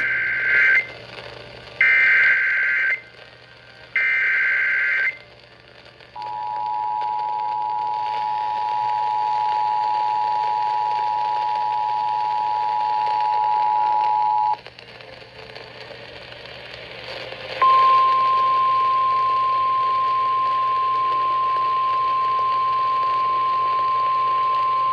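Emergency Alert System activation heard over the radio: three warbling SAME header data bursts about a second long and two seconds apart, then the two-tone attention signal held for about eight seconds. After a short pause comes a single steady alert tone. The header and tones announce a flash flood warning extension.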